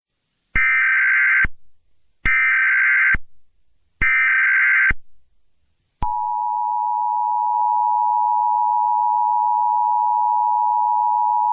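Emergency Alert System tones: three bursts of warbling data tones, each just under a second long and about a second and a half apart (the SAME header). From about six seconds in comes the steady, loud two-tone attention signal.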